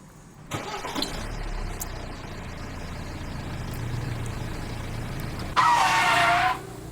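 Mini tractor model running with a steady, noisy engine-like sound and a low hum, starting about half a second in. Near the end a loud, brief pitched tone dips and then holds for about a second.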